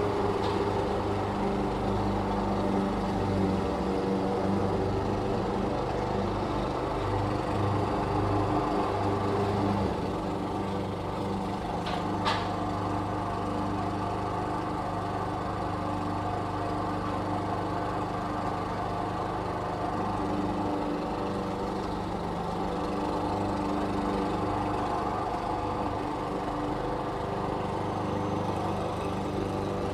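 Lawn mower engine running steadily, dropping slightly in level about ten seconds in, with one short click a little past twelve seconds.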